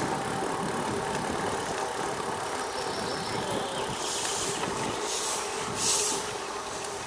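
Steady rolling and wind noise of a bicycle ridden along a park path, with three short brushing swishes about four to six seconds in, from street sweepers' brooms.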